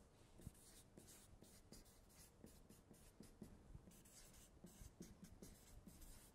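Felt-tip marker writing on flipchart paper: a faint, irregular string of short scratchy strokes.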